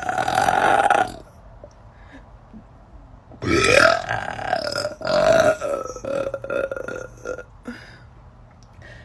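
A woman burping: one burp ends about a second in, then a long, drawn-out burp starts about three and a half seconds in and runs for about four seconds, with a brief break near its middle.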